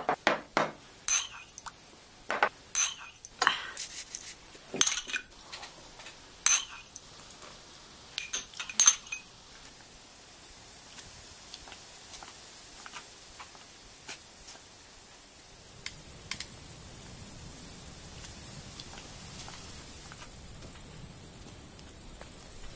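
About a dozen sharp clinks and knocks of tableware and glass on a table, at irregular intervals over the first nine seconds or so. Under them, and alone after them, a steady high chirring of crickets.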